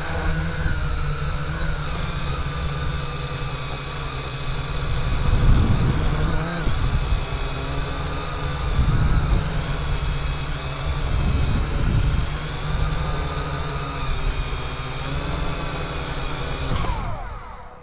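Drone's electric motors and propellers whining steadily, with low gusts of wind rumble on the microphone. Near the end the whine slides down in pitch and cuts out as the motors spin down on landing.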